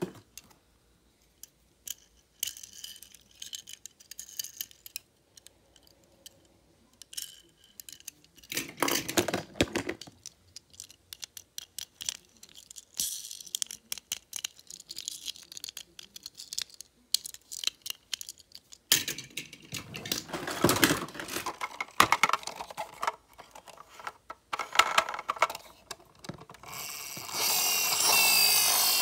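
Die-cast and plastic toy cars clicking and clattering against each other and the plastic bin as they are rummaged through and picked up, in irregular spells. Near the end a steady whir starts from a toy vehicle.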